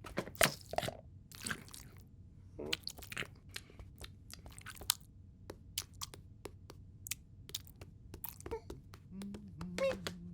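Cartoon sound effects of crunching and chewing: a long string of sharp crunches and clicks, with a low hum coming in near the end.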